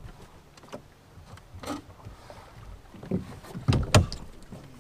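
Knocks and thumps on a small fiberglass boat as someone moves about and handles gear: several light knocks, then two loud thumps close together near the end.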